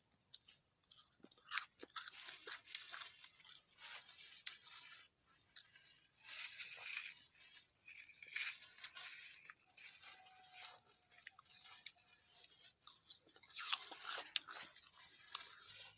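A knife cutting through fresh fruit: a run of irregular crunchy cuts as the blade slices a peeled pineapple, then a pepino melon near the end.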